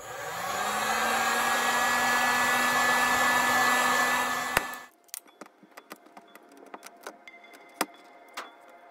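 Electric heat gun blowing hot air, its fan spinning up with a slight rise in pitch at the start, then running steadily before it is switched off about five seconds in. It is warming a dented car door panel before a glue pull. Faint small clicks follow.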